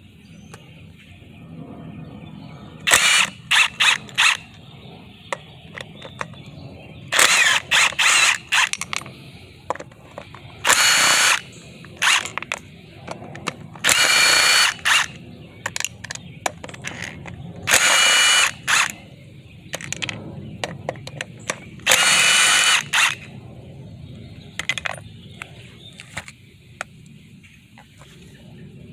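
A 3/8-inch cordless power tool run in about six short bursts, the first a few quick pulses, working the fan clutch off a 6.0 Power Stroke's fan drive.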